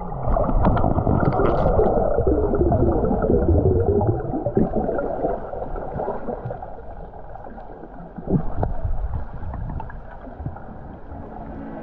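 Muffled underwater sound picked up by a submerged camera: water gurgling and sloshing around it, with scattered small clicks and one louder knock past the middle.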